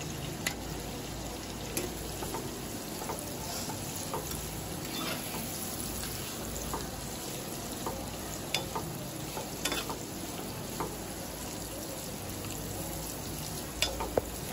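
Sliced onions, green beans and carrot strips sautéing in oil in a kadai, with a steady sizzle and the scattered clicks and scrapes of a spatula stirring them.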